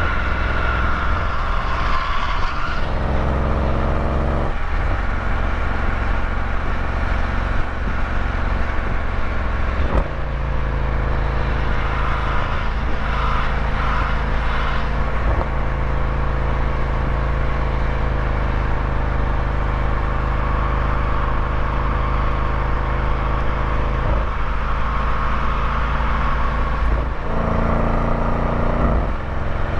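Road vehicle engine running under way over a heavy low rumble of road and wind noise. The engine note holds steady, then steps to a new pitch several times.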